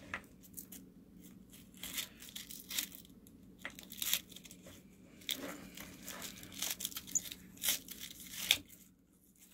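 Hook-and-loop fastener on a belt's elastic keeper being ripped apart and pressed back together around nylon webbing: several short rips at irregular intervals, with rustling of the webbing in between.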